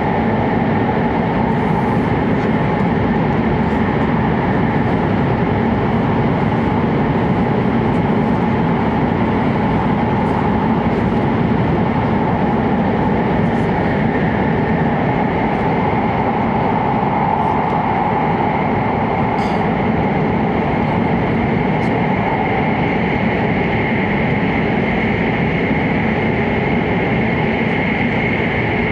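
E7-series Hokuriku Shinkansen train running, heard inside the passenger cabin as a steady, unbroken running noise.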